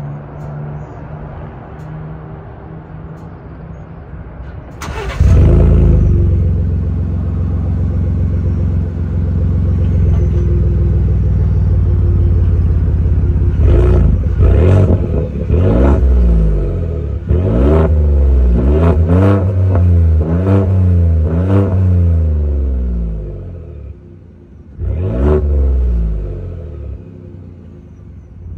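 Ford F-150 twin-turbo EcoBoost V6 with its muffler removed, warm-started about five seconds in and settling into a deep idle. From about fourteen seconds in it is blipped through a quick string of revs, with one more rev near the end that dies back down.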